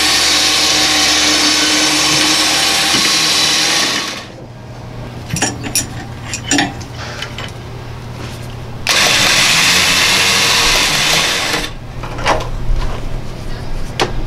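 Portable electric winch motor running under load as it pulls a car that won't run up onto a trailer. It runs for about four seconds, stops, and runs again for about three seconds. A few knocks and clanks come in the pause and near the end.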